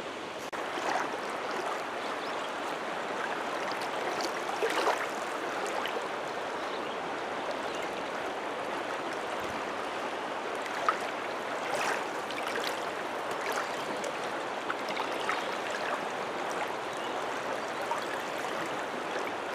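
Steady rushing of a shallow, rocky creek flowing over riffles, with a few brief faint ticks now and then.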